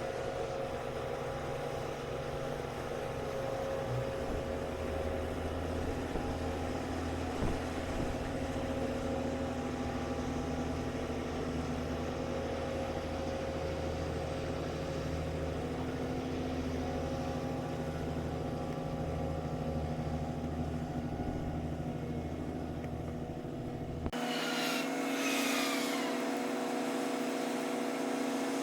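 Large diesel engine running steadily with a low rumble. About 24 s in the rumble cuts off abruptly, leaving a thinner steady hum with a few brief high falling squeals.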